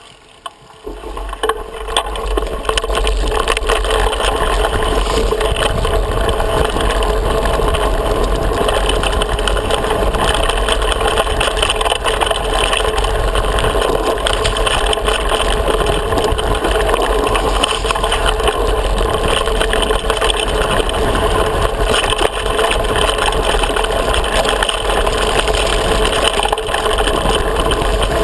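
Steady rushing noise and heavy low rumble from a handlebar-mounted action camera on a bike riding a dirt trail: wind on the camera housing, tyres on dirt and the rattle of the bars. It is quiet at first and rises to full level over the first two seconds.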